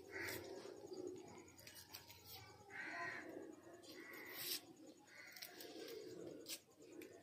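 Garlic cloves being peeled by hand, faint clicks and rustles of dry papery skin, with a few bird calls in the background.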